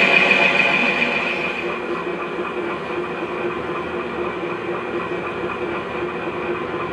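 Simulated engine sound from the sound module of a Land Rover Defender 110 scale RC truck, played through its small speaker: it eases down over the first couple of seconds and then idles steadily.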